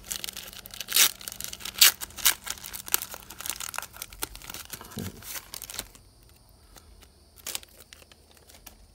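A 1990 NBA Hoops basketball card pack being torn open by hand: the foil-lined wrapper crinkles and rips, loudest in the first two seconds. It dies away after about six seconds, with one more brief crinkle near the end.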